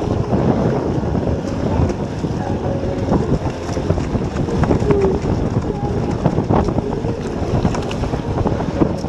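Wind buffeting an action camera's microphone over the rush and splash of water along a surfski's hull and paddle blades as it rides a motorboat's wake.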